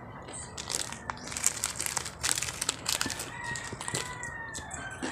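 A crunchy sweet-corn flavoured snack being chewed, many sharp crunches in quick succession, with the plastic snack bag crinkling.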